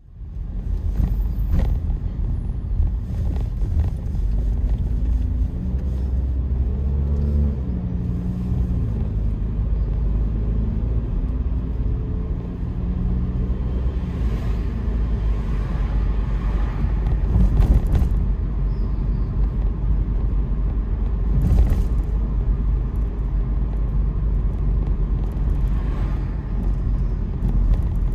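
Car driving along a city street: a steady low engine and road rumble, with the engine note rising and shifting for a few seconds early in the drive.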